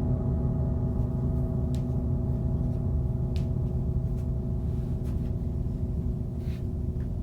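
A sustained low drone: several steady ringing tones over a deep rumble, with a few faint ticks.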